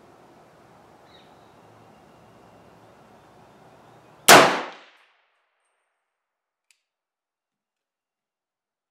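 A single shot from a 300 AAC Blackout AR-15 rifle: one loud, sharp report about four seconds in that dies away within a second, over faint background noise.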